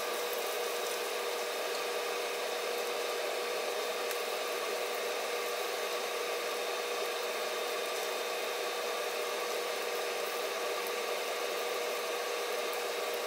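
A5 wagyu steak sizzling steadily in its rendered fat in a frying pan over a gas flame, with a few small crackles. A steady hum runs underneath.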